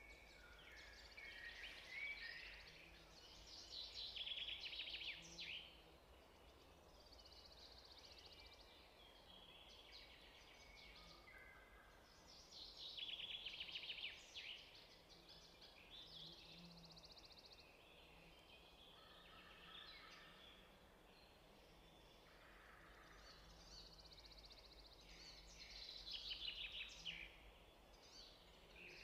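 Faint songbird chirps and rapid trills, in short phrases every few seconds, over a low steady hum.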